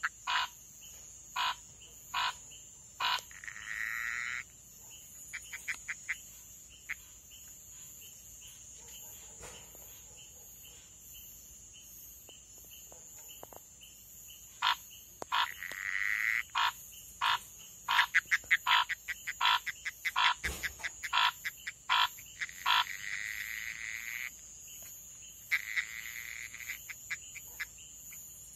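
Male Pithecopus gonzagai monkey frogs calling: short sharp clicking notes, some single and some in quick runs, with a few longer drawn-out notes between them. These are vocalizations of two rival males during a physical tussle. There is a lull of several seconds in the middle.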